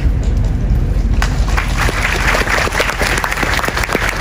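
Audience applauding, starting about a second in and building into a dense patter of many hands, with one person's clapping close by standing out as sharper, louder claps.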